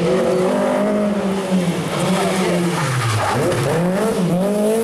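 Rally car engine running hard, its revs dropping sharply about three seconds in and climbing again as it pulls away, with the tyres skidding.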